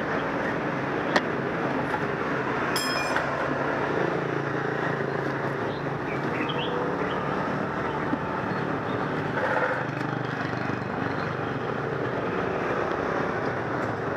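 Steady motor and street noise with a low hum, broken by a sharp click about a second in and a brief metallic clinking near three seconds.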